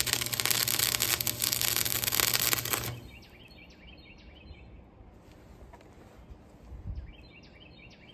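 Stick welding arc crackling and hissing over a steady hum as a bead is laid into a V'd-out worn weld seam on a steel backhoe bucket; it cuts off suddenly about three seconds in. After that, birds chirp faintly in short repeated phrases.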